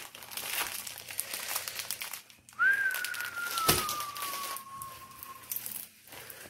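Crinkling of a plastic-covered diamond painting canvas being unrolled and pressed flat, with a sharp tap about halfway through. From about two and a half seconds in, a long, high, whistle-like tone slides slowly downward for about three seconds.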